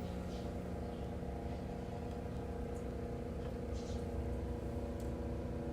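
A steady hum from a small motor, made of several steady tones, with a few faint light ticks or splashes over it.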